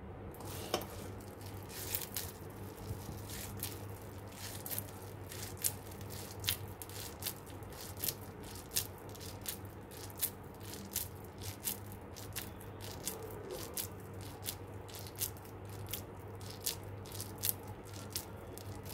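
Boondi soaked in sugar syrup being squeezed by a wet hand into a ladoo: small irregular clicks and crackles, about one or two a second, over a faint steady low hum.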